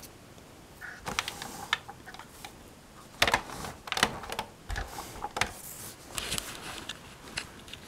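Hard plastic toy tanks being handled and shifted into place on a cloth-covered floor: scattered light clicks, taps and rustling, with a few sharper knocks between about three and five and a half seconds in.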